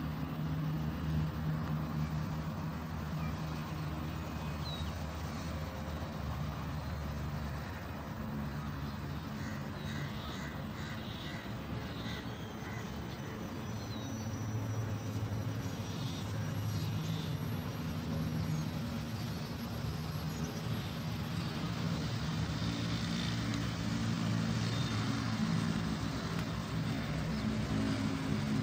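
Steady hum of road traffic on an elevated highway. A bird calls a few times around the middle.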